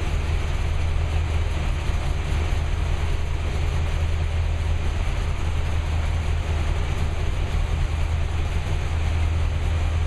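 Carbureted engine with a solid-lifter camshaft, its valve lash just set to 0.014 in hot, idling steadily just after start-up.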